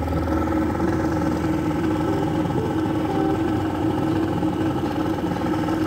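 Outboard motor running steadily at speed, driving a small fishing boat, with water rushing in the wake.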